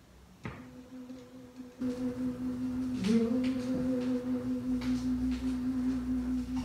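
Record player being started: a click about half a second in, then a steady low hum that dips and rises again in pitch about three seconds in, with a few faint ticks, before the record begins.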